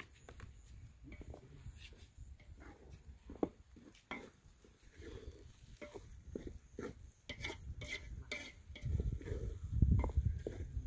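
Wooden spoon stirring a steaming aluminium pot of simmering vegetable sauce, with scattered short knocks and scrapes against the pot. A louder low rumble comes in near the end.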